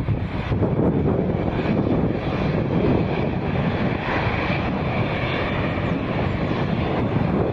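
Boeing 787 Dreamliner's twin jet engines running at taxi power as the airliner turns on the taxiway, a steady rumble.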